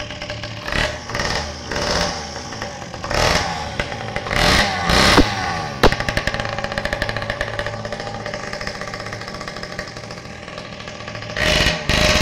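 Mini bike engine running and being blipped with several short revs, with two sharp cracks about five and six seconds in. It then settles to a steadier idle before revving up again near the end.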